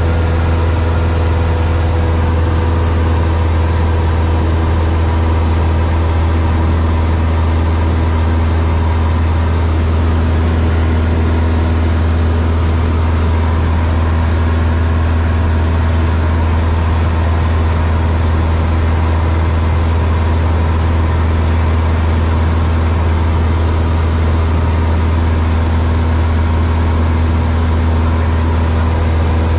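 Steady drone of a single-engine light aircraft's piston engine and propeller in cruise, heard inside the cabin. A strong low hum with a few steady higher tones sits over an even rushing noise.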